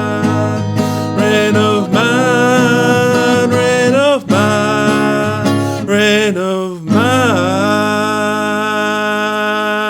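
Acoustic guitar music under a sustained melody line that slides into each note and wavers.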